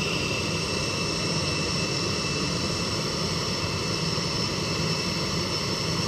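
Jet aircraft at the gates idling: a steady high whine over a low rumble that does not change.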